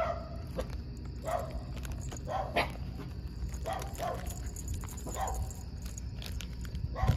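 A dog giving a series of short barks, spread irregularly through the few seconds, over a steady low rumble.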